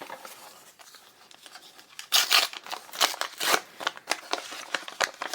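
Foil wrapper of a trading-card booster pack being crinkled and torn open: faint rustling, then a series of short crackling rips from about two seconds in.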